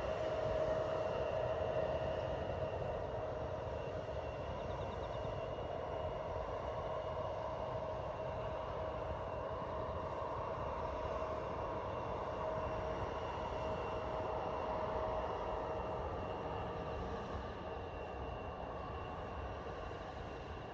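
Jet airliner's engines running at taxi power as it moves away down the runway: a steady whine with a clear high tone over a low rumble, slowly growing fainter.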